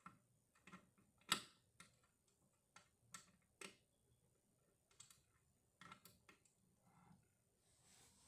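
Faint, irregular clicks and taps of a screwdriver working the screws out of a Wheelock 7001D fire alarm, about a dozen scattered through the span, the sharpest just over a second in.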